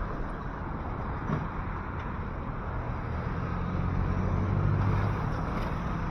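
Street traffic noise, with a motor vehicle's engine hum growing louder about three seconds in and easing off near the end as it passes.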